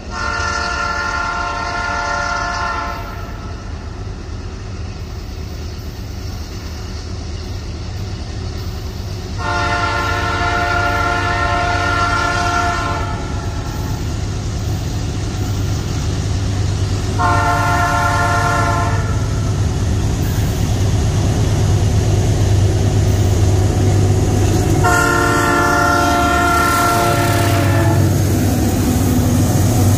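Diesel freight locomotive sounding its multi-note air horn four times (two long blasts, a short one, then a long one) as it approaches. The low rumble of its engine and the train grows louder until it passes near the end.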